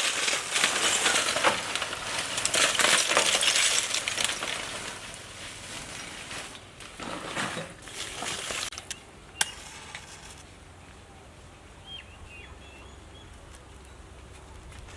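Clinking and rattling handling noise, dense for the first few seconds, then a shorter burst and a single sharp click. Faint bird chirps follow in the quieter second half.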